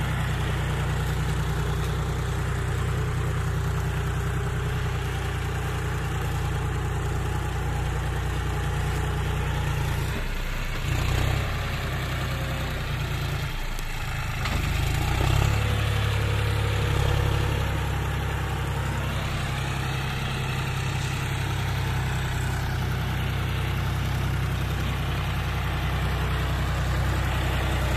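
John Deere 5039D tractor's three-cylinder diesel engine running steadily under load while pulling a trailer through mud. Its note dips briefly twice around the middle, then runs louder.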